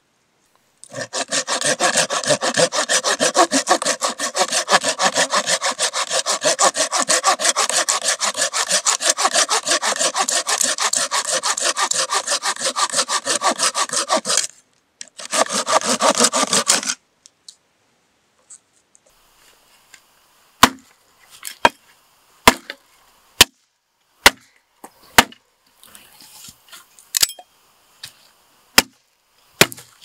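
Folding pruning saw cutting through a dead branch in quick, steady back-and-forth strokes, a few a second, pausing briefly about halfway through and stopping at about 17 s. In the last third, about nine sharp single chops of a blade striking dry wood, about a second apart.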